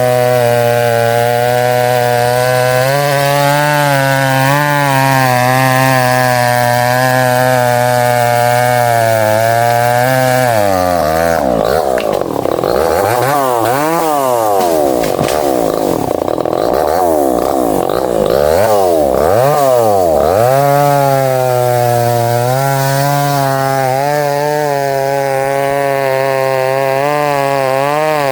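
Chainsaw engine running steadily while cutting into a thick tree trunk. For about ten seconds in the middle its pitch sweeps up and down unevenly, then it settles back to a steady note.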